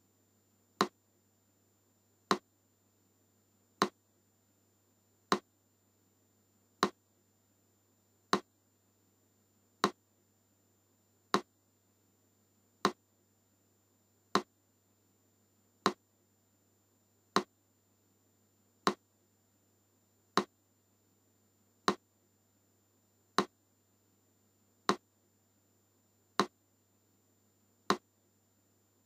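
Metronome ticking slowly and steadily, one sharp click about every second and a half, over a faint low hum.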